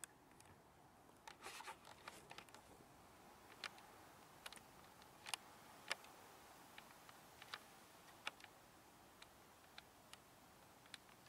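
Near silence with a faint steady hiss, broken by scattered faint clicks and a few rustles from handling the handheld camera.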